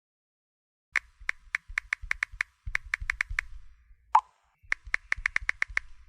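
A rapid run of short, sharp clicks, about five a second, in two runs with a single louder click between them.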